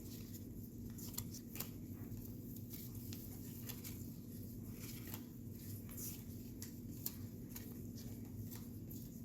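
Baseball trading cards being handled and flipped through: faint, irregular soft clicks and slides of card stock over a steady low room hum.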